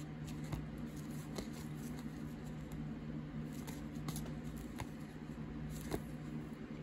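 Trading cards being flipped one by one from a hand-held stack: faint scattered ticks and slides of card stock, over a steady low hum.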